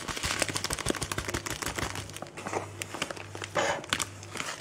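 Plastic bag of desiccated coconut crinkling and rustling as it is handled and shaken out over a bowl, with irregular crackling all through.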